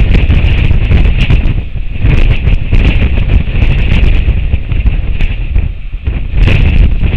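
Strong wind buffeting the nest camera's outdoor microphone: a loud, gusting low rumble that eases briefly a couple of times, with hiss and scattered crackles on top.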